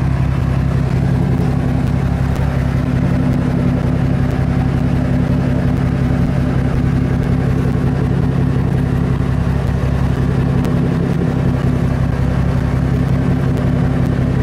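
Fishing boat's engine running steadily with a constant low hum.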